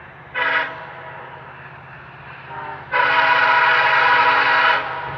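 Freight locomotive air horn: a short blast, then a longer, louder chord-like blast lasting about two seconds, over a steady low rumble.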